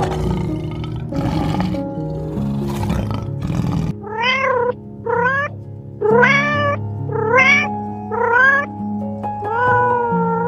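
A lion's deep, rough grunting roars for the first four seconds or so. Then a kitten meows six times, each meow rising then falling in pitch.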